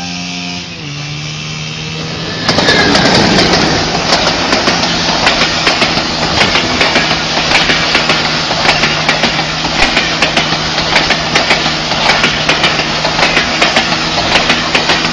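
A steady low engine hum, then about two and a half seconds in an engine starts suddenly and runs loudly with a rapid rough crackle.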